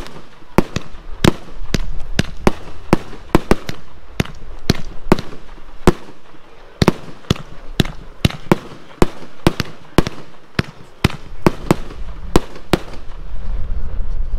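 BIG Fireworks 'Summer Shine' 500-gram fireworks cake firing a rapid string of shots, about two to three sharp bangs a second as shells launch and burst in the air.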